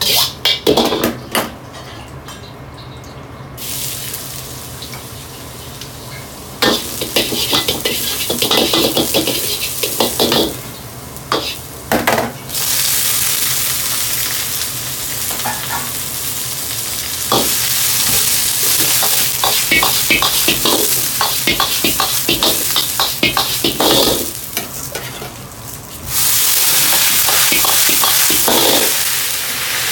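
Cabbage and green vegetables sizzling in a wok over a high gas flame, with a metal ladle clattering against the wok as they are stirred and tossed. Clattering alone comes first. The loud sizzle begins about halfway through and swells again near the end.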